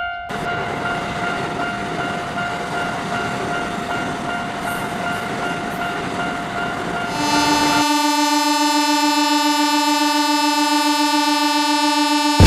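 Railroad crossing bell ringing steadily over the rumble of a passing train. About seven seconds in a train horn starts and holds one long steady note as the rumble fades out.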